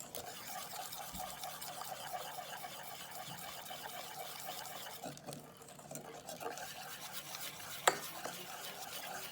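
A spoon stirring thick chickpea-flour (besan) batter in a bowl, a steady wet scraping, with one sharp clink against the bowl about eight seconds in.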